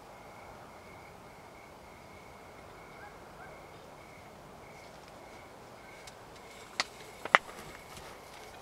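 Insects chirping in an even, pulsing rhythm, then two sharp clicks or knocks near the end, about half a second apart, the second one louder.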